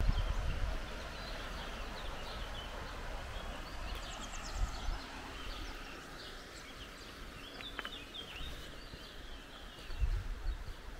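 Outdoor ambience with small birds chirping in short, scattered calls, and a low rumble about midway and again near the end.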